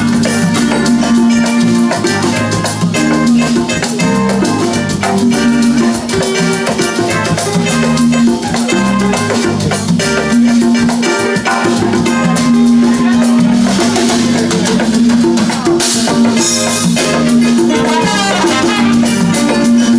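Live highlife band playing, with a drum kit keeping a steady groove under sustained bass and melodic instrument lines.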